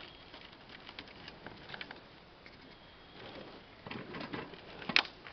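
Scattered light clicks and rubbing from a steel lever-and-clamp joining tool as its lever draws a double-wall corrugated HDPE pipe into its socket, busier about four seconds in, with one sharp click about five seconds in.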